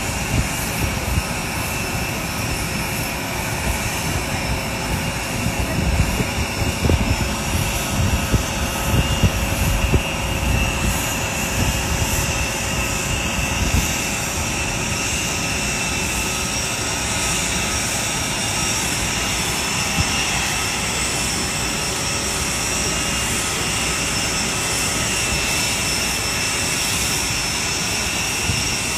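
Steady jet aircraft engine whine and rumble, with several high steady tones running through it. The low rumble is uneven and heavier between about five and fourteen seconds in.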